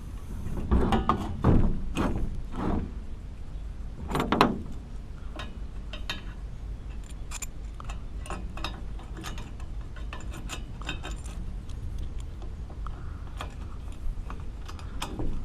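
Metal exhaust pipe parts and a bolt-on exhaust clamp being handled and fitted together, with irregular clinks and knocks. The louder knocks come in the first few seconds, followed by lighter clicks.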